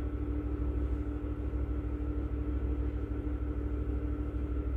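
A steady low background hum with a constant tone running over it.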